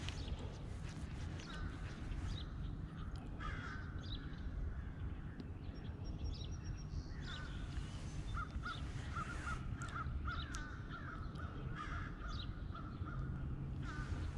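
Birds calling again and again, short harsh notes with a quick run of them in the middle, over a steady low background rumble.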